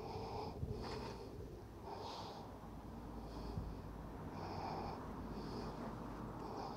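Soft, short swishing, breath-like sounds about once a second as a magnet fishing rope is hauled in hand over hand with rubber gloves.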